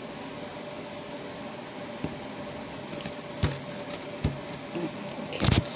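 Hands working a fluffy slime and pressing it onto a surface, giving a few knocks, the loudest near the end, over a steady background hum.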